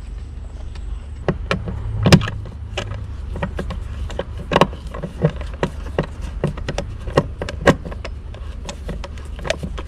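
Hand screwdriver driving the clamp screw of a blue plastic old-work single-gang electrical box, tightening its clamp against the inside of the wall: irregular clicks and knocks from the driver, screw and plastic box, the loudest about two seconds in, over a steady low hum.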